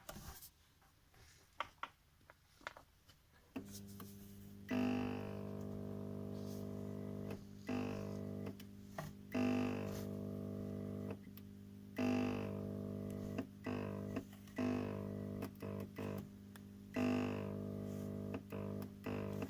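Worn-out 20 W T8 fluorescent tube on a starter-and-choke circuit at the end of its life. A few sharp starter clicks, then a steady electrical buzz with loud surges every two to three seconds and brief dropouts, as the tube flickers and the starter fires again.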